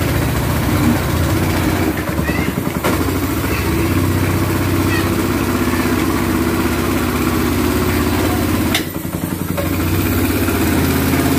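Motorcycle engine of a homemade mini buggy running steadily at low speed as the kart creeps forward, briefly going quieter about nine seconds in before picking up again.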